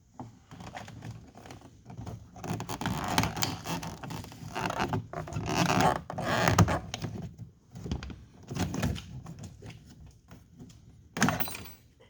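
Plastic door-panel trim on a Chevrolet 2500 HD rear door being pried and pulled off: irregular scraping, rubbing and clicking of plastic against the door, with a sharp knock about eleven seconds in.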